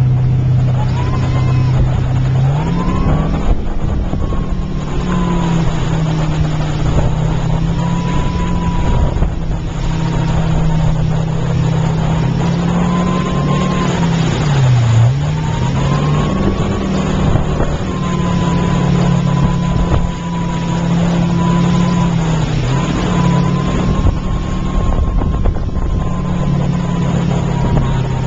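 Motorboat engine running under way while towing a banana boat, over rushing wind and water. Its pitch rises about three seconds in as it speeds up, and it drops briefly and picks up again about halfway through.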